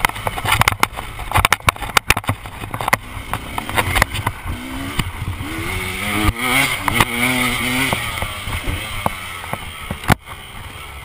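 KTM dirt bike engine revving up and down as it is ridden hard, with frequent sharp knocks and rattles from the bike bouncing over rough ground.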